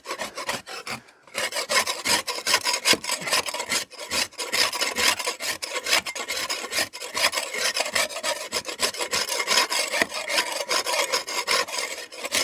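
Rapid, continuous scraping and chipping of old render off a half-timbered wall panel with a metal hand tool, with many sharp scratchy strokes and flakes falling. It starts a little over a second in.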